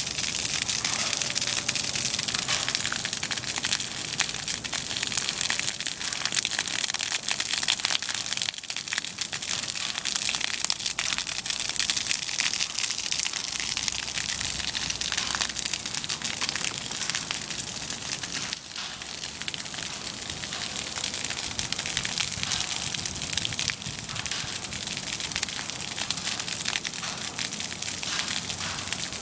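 Water jetting steadily from a broken sprinkler head: a constant high hiss with a fine crackle of spray and droplets falling on wet concrete.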